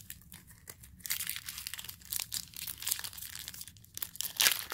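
A foil trading-card pack being torn open, its wrapper crinkling and crackling in ragged bursts that start about a second in.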